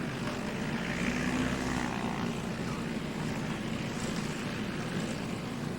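Propeller airplane engine running steadily.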